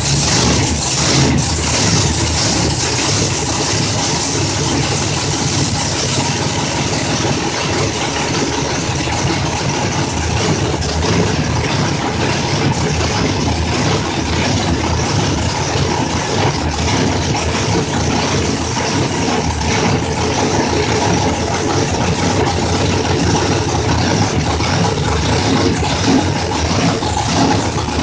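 Big-block Chevrolet V8 on an engine dyno, running steadily on its first start-up, with a couple of slight rises in engine speed near the end.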